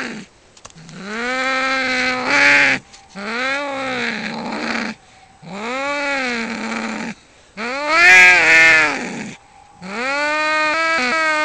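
Two tomcats yowling at each other in a territorial standoff: about five long, drawn-out caterwauls in a row, each rising and then falling in pitch, with short pauses between them.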